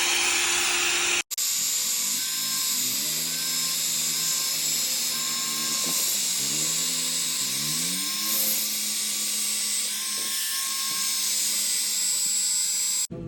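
Electric angle grinder whining steadily as it cuts steel exhaust pipe, its pitch dipping and climbing back as the disc takes and eases off the load. The sound breaks off for an instant about a second in.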